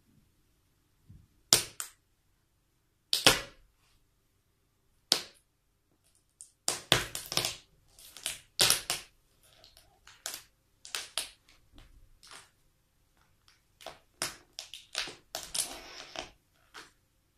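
Toy cars cracking and crunching under high-heeled shoes: a few separate sharp cracks at first, then a dense, irregular run of snaps and crunches.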